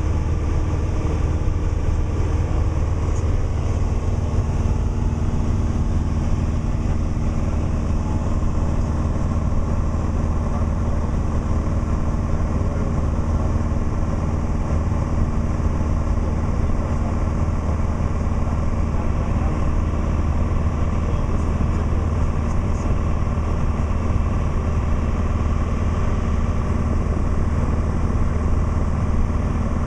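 Light propeller airplane's engine and propeller droning steadily, heard from inside the cabin in level cruise flight.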